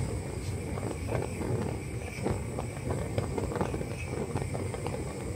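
Thetford Topline 922 two-burner gas hob burning with a steady rush and irregular popping and crackling. Air is still being purged from the newly installed gas line, so the flames are not yet burning clean.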